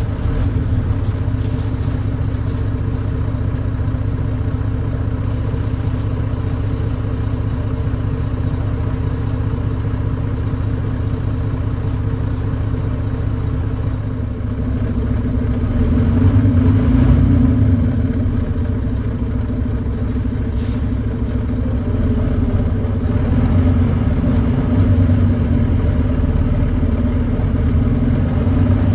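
Volvo D9B 9.3-litre diesel engine of a Volvo B9TL double-decker bus running under way, heard from on board, with an exhaust leak adding to its thrash. It gets louder about halfway through as it pulls harder, then again a few seconds later.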